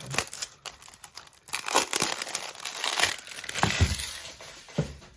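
Packaging being crinkled and rustled by hand while a fidget spinner is unwrapped, a dense crackle with many small clicks that is busiest in the middle and dies away near the end.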